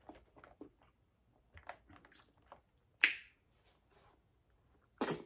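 Eating by hand from a Cajun seafood boil: scattered soft wet clicks of fingers picking through the food, then a sharp wet smack about three seconds in as a piece is bitten, and another short smack near the end.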